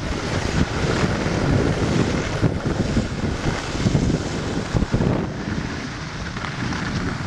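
Wind buffeting the camera microphone in a steady, gusting rush, as from the airflow of a downhill ski run.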